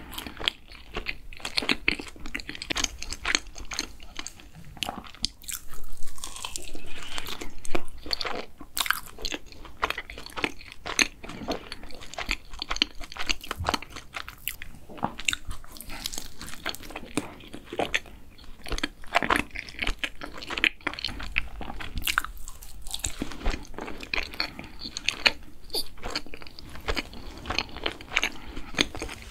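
Close-miked chewing and biting of a blueberry cream cheese doughnut with a crumb topping: many small, irregular crunches and wet mouth clicks as the soft dough is chewed.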